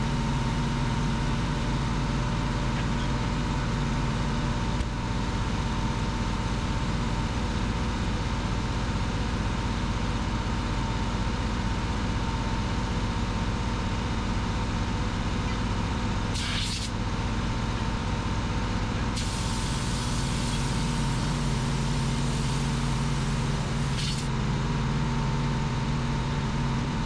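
Air compressor running steadily while a tractor's rear tire is inflated through an air hose, with two short hisses of air, one a little past halfway and one near the end.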